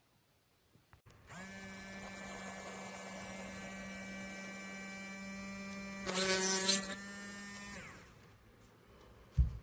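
HARDELL 3.7 V cordless mini rotary tool's small electric motor spinning up about a second in, running at a steady high-pitched hum, then spinning down. It turns louder and rougher for under a second near the middle. A short thump comes near the end.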